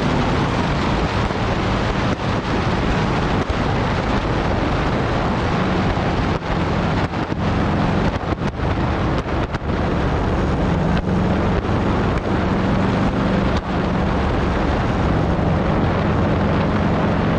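Motorcycle riding at speed, heavy wind rushing over the onboard camera microphone, with the engine's low note strengthening and fading under the wind as the bike works through the bends.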